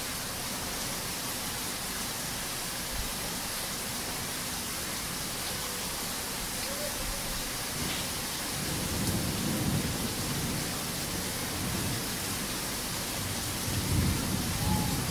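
Heavy rain falling steadily, with low thunder rumbling in about halfway through and again near the end.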